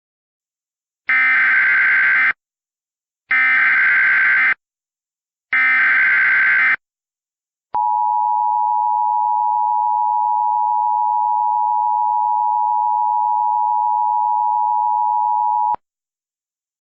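Emergency Alert System tones: three short bursts of warbling data tones (the SAME header), each about a second long, then the steady two-tone attention signal held for about eight seconds and cutting off sharply. Together they mark the start of a broadcast alert, here announcing a flash flood emergency.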